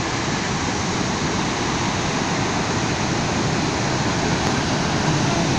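Flood water released through a single open spillway gate of Srisailam Dam, pouring down the spillway face and crashing into the river below: a steady, even rush of falling water.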